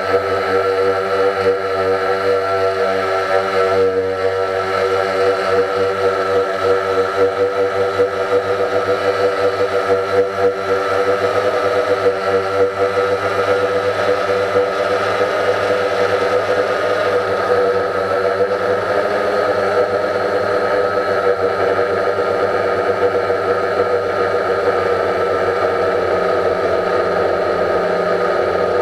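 Quadcopter drone's electric motors and propellers whirring in flight, picked up by the drone's own on-board camera: a steady buzzing hum holding a few fixed pitches.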